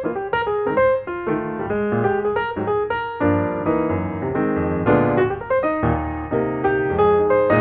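Background piano music, a light melody over chords with notes struck several times a second.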